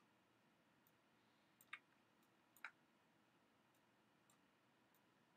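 Near silence, with two faint computer mouse clicks a little under a second apart, about two seconds in.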